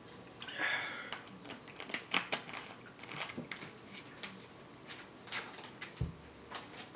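Scattered clicks and crackles of a plastic Coca-Cola bottle being handled and its cap screwed on, with a dull thump about six seconds in as it is set down.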